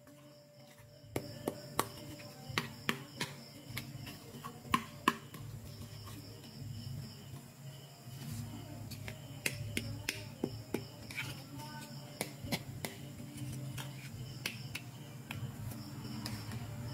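Small plastic toy pieces clicking and tapping as hands handle and unpack them: irregular sharp clicks beginning about a second in, some clustered, over a faint steady hum.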